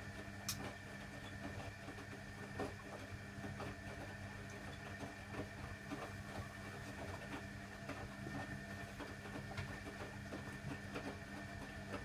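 Hoover Electronic 1100 washing machine tumbling a wash load: a steady motor hum with a faint high whine, and scattered light clicks and knocks from the turning drum. The owner reports the motor bearing as noisy.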